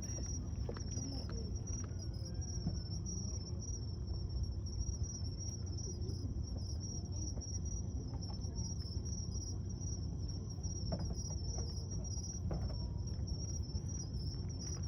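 Insects trilling steadily in a high, slightly pulsing chirr, over a low, constant background rumble.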